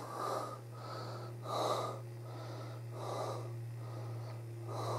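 A person breathing noisily close to the microphone, a soft breath in or out about every second, over a steady low hum.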